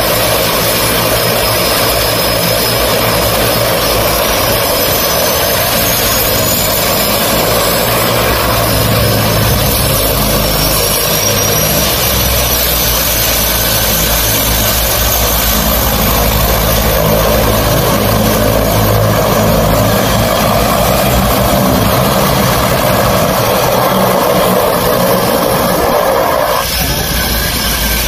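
Twin-turboprop floatplane, a de Havilland Canada DHC-6 Twin Otter, running its engines with propellers turning as it idles at the dock and taxis away on the water. A steady loud propeller and engine noise with a low rumble, and a faint high turbine whine that slowly rises in pitch during the first few seconds.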